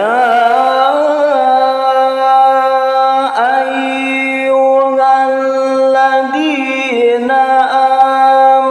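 Male Quran reciter (qari) chanting in the melodic tilawah style into a handheld microphone, holding one long note on a single breath, with short ornamental turns in the voice about three seconds in and again near the end.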